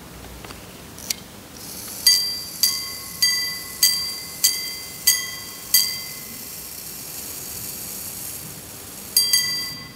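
Repeating mechanism of a gold Breguet jump-hour pocket watch chiming the time, the repeater working. A click as it is set off, then seven evenly spaced ringing strikes about 0.6 s apart over a faint high hiss, a pause, and two quick, higher strikes near the end.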